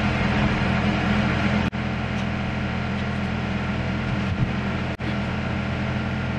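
Steady machine hum: a low drone with a hiss over it, dropping out briefly twice, about two and five seconds in.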